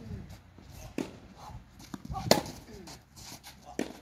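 Tennis balls struck by racquets in a baseline rally: three sharp hits about a second and a half apart, the loudest in the middle.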